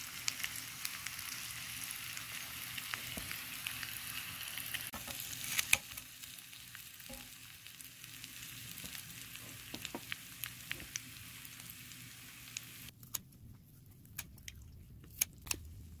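Gopchang (grilled intestines) sizzling in oil in a frying pan with onion, potato and garlic. The sizzle is strongest in the first half, fades, and cuts off abruptly near the end. Scattered sharp clicks run through it, with a few more after the sizzle stops.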